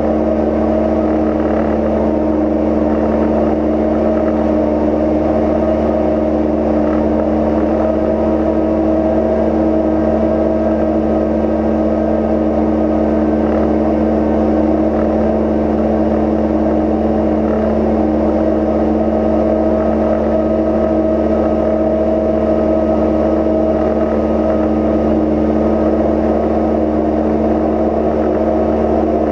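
Cozy Mk IV light aircraft in steady flight: a constant engine and propeller drone heard from inside the cabin, with several steady tones and no change in power.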